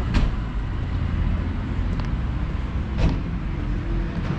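Steady road-traffic rumble on a city street, with two sharp clicks, one just after the start and another about three seconds in.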